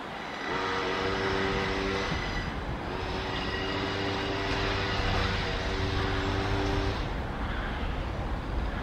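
Double-deck electric TER train running slowly, with its steady electric whine over the low rumble of its wheels on the track. The whine sets in about half a second in, and the rumble grows stronger in the second half.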